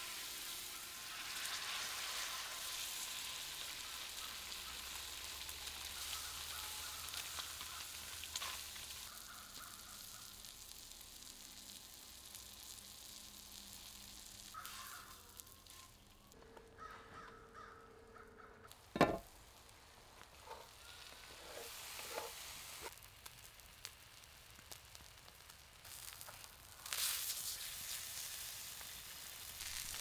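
Salmon fillet sizzling on a hot oiled cast iron griddle, the sizzle strongest at first and dying down. A single sharp knock about two-thirds of the way through, and the sizzling picks up again near the end.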